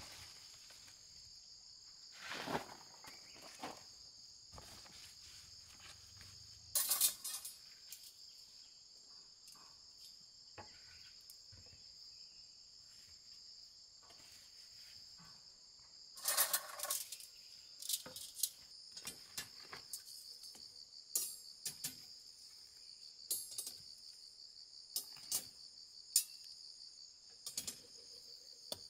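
Steady high chirring of insects, over handling sounds: rustling of woven plastic sacks a few times in the first half, then many short sharp clinks in the second half as steel reinforcing bars are laid in a grid over the sacks.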